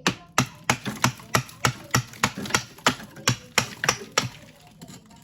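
A hard tool striking built-up freezer ice again and again, chipping it away: sharp knocks about three a second, each with a short dull thud.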